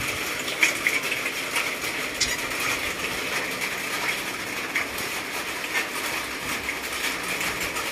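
Steady rain: an even hiss with many light ticks of drops scattered through it.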